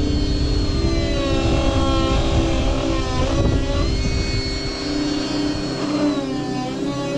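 Petrol chainsaw running at high revs. Its pitch drops twice as it comes under load in the cut, then climbs back up.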